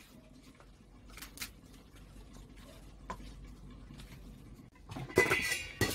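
Quiet kitchen room tone with a few faint light clicks. About five seconds in, a short louder clatter of kitchen utensils or cookware.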